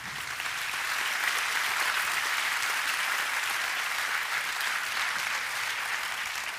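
Audience applauding, swelling over the first second and then holding steady.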